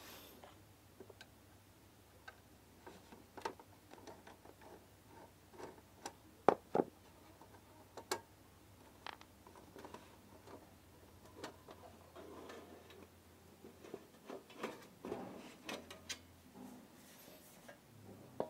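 Home theater unit's casing being handled and its top cover lifted off: scattered clicks and light knocks, the loudest two close together about six and a half seconds in.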